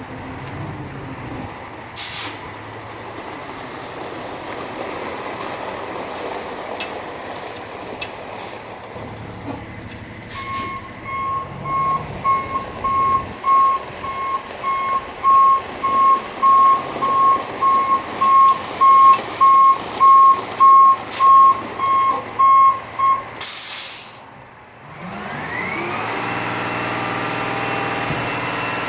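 Dump truck working: its engine runs, then its reversing alarm beeps steadily, about twice a second, for some twelve seconds. A loud air-brake hiss follows, and the engine revs up near the end.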